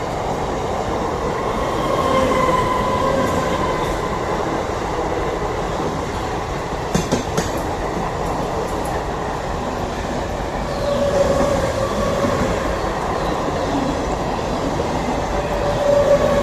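MEMU electric multiple-unit local train running past on the adjacent track: a steady rumble of wheels on rails, with a short cluster of clicks from the wheels about seven seconds in and a faint whine that comes and goes.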